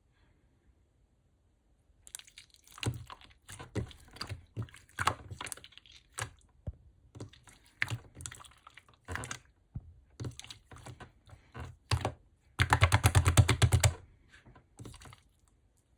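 Clear slime being squeezed and pressed by hand, giving irregular crackling clicks and pops that start about two seconds in, with a fast run of crackles near the end.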